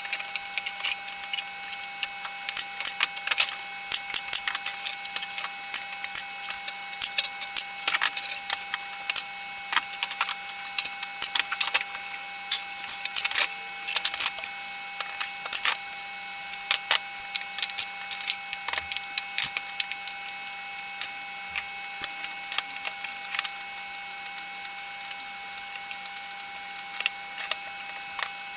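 Irregular clicks and light knocks of wooden drawer parts being handled and pushed together during assembly, over a steady faint electrical hum.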